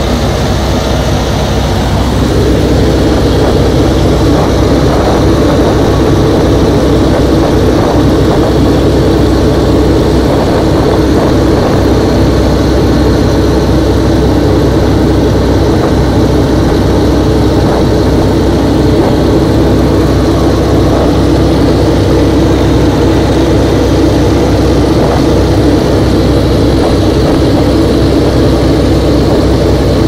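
Nanchang CJ-6's nine-cylinder radial engine and propeller running steadily, heard from inside the cockpit. The drone gets louder about two seconds in and then holds.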